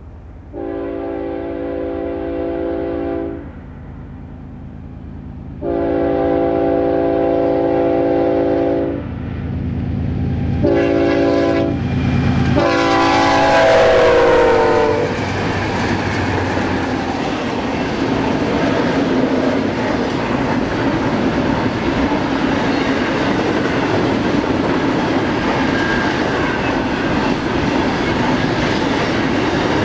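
BNSF diesel freight locomotives sounding their air horn in two long blasts, a short one and a final long one, the long-long-short-long grade-crossing signal. The last blast drops in pitch as the lead units pass, over the low drone of the engines. The double-stack container cars then roll by with a steady noise of wheels on rail.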